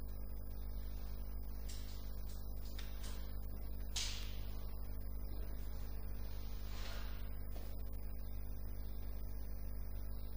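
Steady low electrical hum, with a few brief scratching strokes about two, three, four and seven seconds in, the one near four seconds the loudest.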